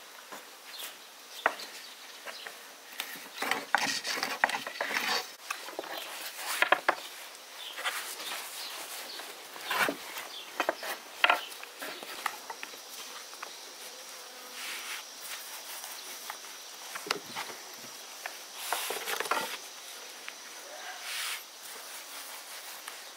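A long thin wooden rolling pin rolling noodle dough on a floured wooden board: soft swishes that come and go with each stroke, and now and then a sharp click of the pin on the board.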